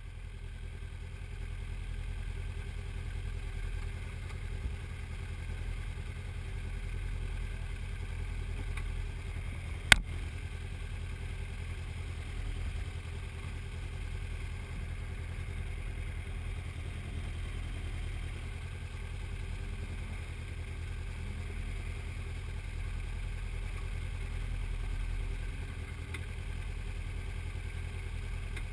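Formula 3 racing car on track, heard from the cockpit as a low, steady rumble of engine and wind with a faint engine note rising now and then. One sharp click about ten seconds in.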